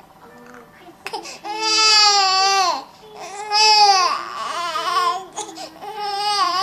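Young infant crying: after a faint, fussy first second, three loud wails of about a second and a half each, the pitch dropping off at the end of each cry.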